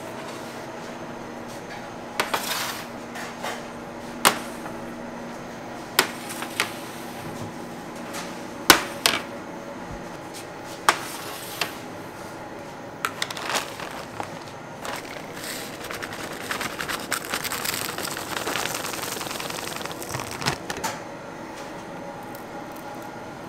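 Bakery work sounds: a dozen or so sharp knocks and clinks, scattered and irregular, over a steady machine hum, with a stretch of crackly rustling near the end.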